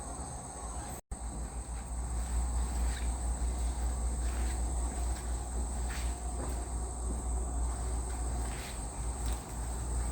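Steady high-pitched buzzing of insects over a low rumble. The sound drops out for an instant about a second in.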